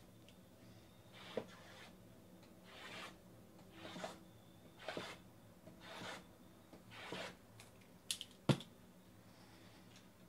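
Stacked boxes of 2019 Topps Tier One baseball cards being slid and squared up by hand. About six short rubbing, scraping strokes come roughly a second apart, then a few sharp taps near the end, the last one the loudest.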